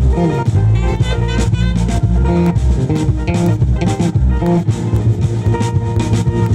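Band music with guitar, bass guitar and drum kit playing a steady beat.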